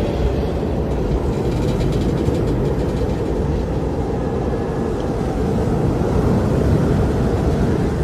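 Tornado roar: a loud, steady, low rumbling noise with no break.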